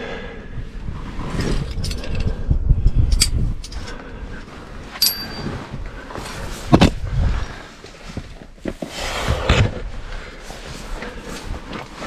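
Scuffs and knocks of a climber moving up a sandstone crack, with a short metallic clink as a quickdraw's carabiner is handled about five seconds in, and one louder knock a couple of seconds later.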